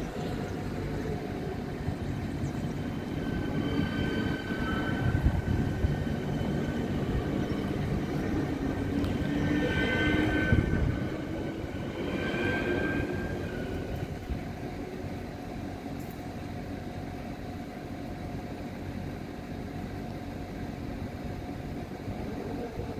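A passenger train passing over a level crossing: a rumble that builds, peaks about ten seconds in and fades a few seconds later, with high steady tones riding over it while the train goes by.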